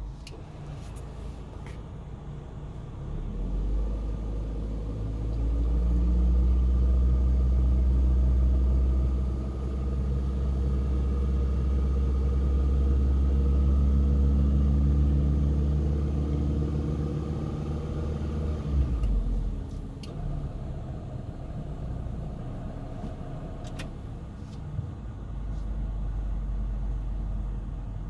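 Toyota Tercel running with a low rumble that swells a few seconds in, holds, then drops back about nineteen seconds in.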